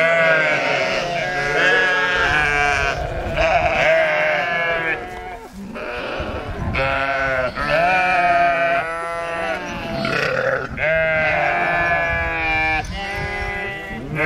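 Sheep bleating over and over, several animals calling over one another, with a short lull about five seconds in.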